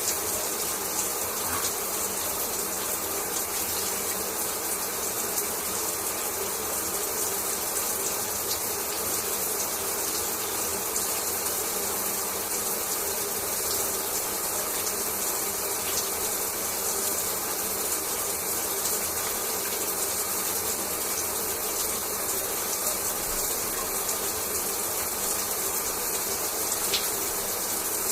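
Shower water spraying steadily and falling in a bathroom: an even hiss of running water, with faint fine spatters and drips.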